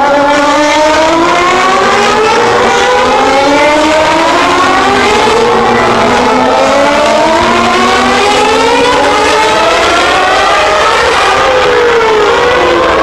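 2011 Formula 1 cars' 2.4-litre V8 engines at full throttle accelerating out of a corner, the high-pitched engine note rising again and again as they change up through the gears, with one car passing and then another. A falling note comes near the end.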